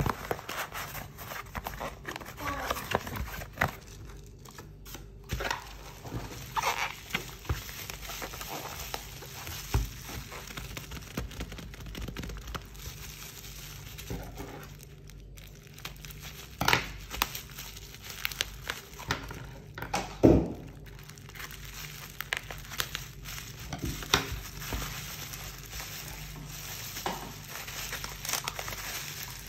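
Plastic mailer and taped packaging being handled and unwrapped: irregular crinkling and rustling of thin black plastic and clear tape, with a few sharper, louder crackles past the middle.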